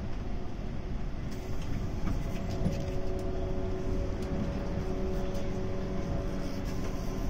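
JNR 185 series electric train running at speed, heard from inside the car: a steady rumble of wheels on rail with a faint steady whine and a few light ticks.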